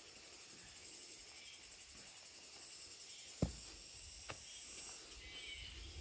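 Insects trilling steadily in a high, finely pulsing chorus. A single thump about three and a half seconds in, and a fainter click just after.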